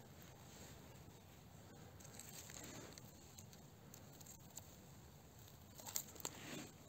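Near silence with faint rustling of moss and twigs as a hand works around a mushroom, and a few sharp little clicks and a rustle near the end.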